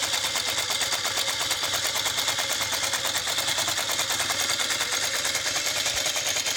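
Techsew 2150 industrial sewing machine running steadily, needle and mechanism clattering in a rapid, even rhythm as it stitches.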